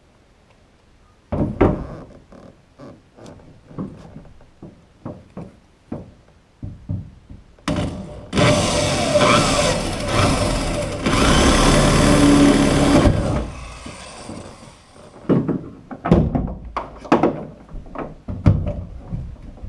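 Electric drill boring a hole through a wooden boat bulkhead in two runs of a few seconds, its motor pitch wavering under load, with knocks and clatter of tool handling before and after.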